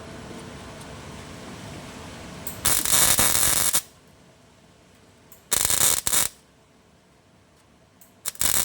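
MIG welder laying tack welds: three loud bursts of arc crackle, each about a second long and roughly two and a half seconds apart. The mixed shielding gas is not turned on, so the weld is sputtering.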